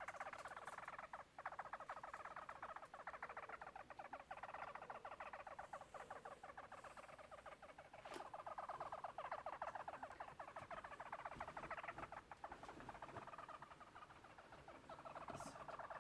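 Pet hamster making a fast, continuous pulsing sound, many small pulses a second, with short breaks about a second in and about eight seconds in.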